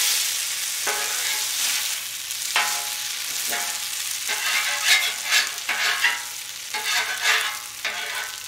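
Hash browns sizzling on a Royal Gourmet 36-inch flat-top griddle while a metal spatula scrapes across the steel plate in repeated strokes. Several strokes carry a squealing metallic ring.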